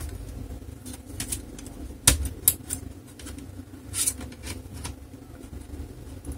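Plastic retaining clips of an HP Pavilion 15-cd059sa laptop's bottom case clicking as a thin knife pries the case apart. There are a few sharp clicks, the loudest just after two seconds in, over a steady low background hum.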